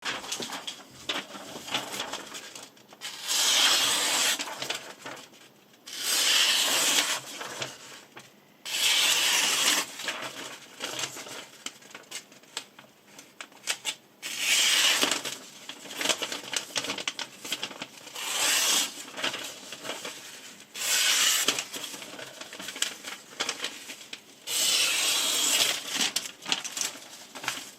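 Steel knife edge scraped along a diamond sharpening plate in several loud strokes of one to two seconds each, with quieter scraping and light clicks between them.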